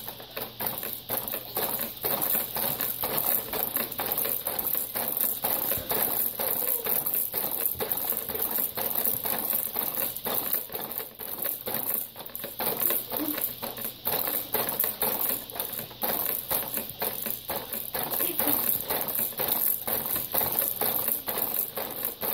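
Baby activity jumper clicking and rattling in a quick, even rhythm as a baby bounces in it continuously: the frame, springs and plastic toys knock with each bounce.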